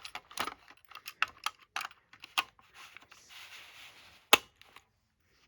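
Irregular plastic clicks and knocks as a battery-powered smoke alarm is handled, with a soft rustle about three seconds in and one sharp, loud click just after four seconds.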